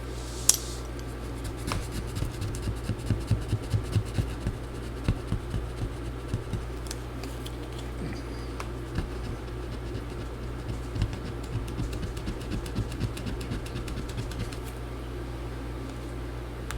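Tool scraping and picking at battery adhesive residue inside a laptop case: irregular short scratchy strokes and small clicks that die away near the end, over a steady low hum.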